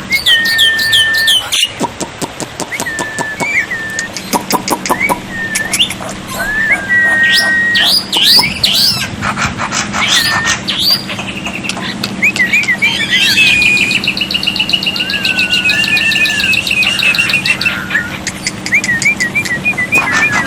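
Black-winged myna (jalak putih) song: a run of clear whistles, some held level and some sliding up or down, mixed with sharp clicks and chatter. A long rapid trill comes about midway through.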